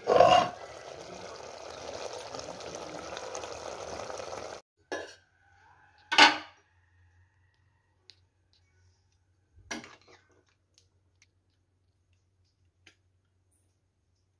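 Metal lid clanking on a clay cooking pot, followed by a steady hiss that cuts off after about four seconds. Then three separate clatters of metal kitchen utensils a second or more apart, and faint ticks after them.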